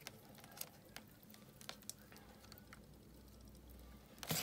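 Faint sizzling with scattered small ticks from a new 12 V motorcycle battery (4Ride YTX7A-BS), freshly filled with acid and fizzing inside as it forms. Near the end there is a louder, brief handling noise as multimeter test leads are put to the terminals.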